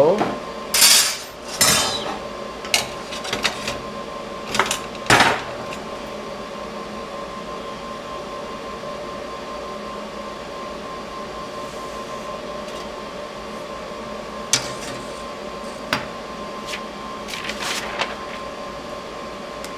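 Metal rule and square handled on a steel plate on a workbench: a quick run of clinks, taps and clatters in the first few seconds, then a few single ticks and light rustling, over a steady workshop hum.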